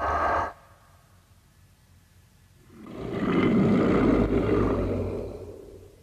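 Godzilla roar sound effects: a short roar that cuts off after half a second, then about three seconds in a long, low roar that swells and fades out.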